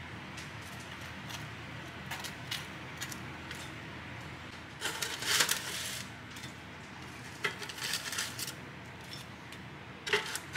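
Seasoning being dispensed over an English muffin: a scratchy, rattling burst of about a second near the middle, with a shorter run a couple of seconds later. Around it are scattered light clicks and taps of food and utensils handled over a plate, over a steady low kitchen hum.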